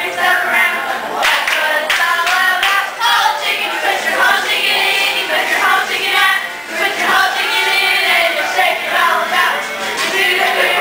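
A group of young women singing a birthday song together in chorus, clapping along.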